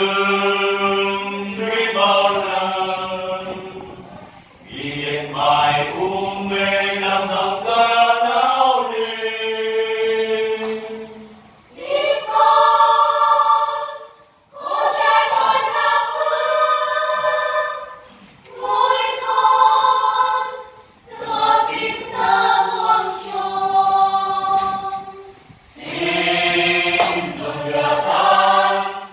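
A church choir of men and women singing a hymn together at rehearsal, in phrases of held notes a few seconds long with short breaks between.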